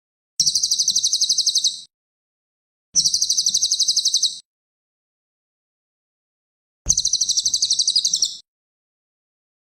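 Cililin songbird singing three rapid, high-pitched trills of about a second and a half each, roughly nine notes a second, with dead silence between them: a tutor recording for training caged birds.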